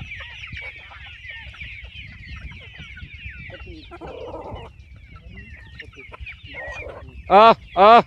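A flock of free-range chickens clucking over a steady high chirping chatter. Near the end, two loud squawking calls from a hen follow each other about half a second apart.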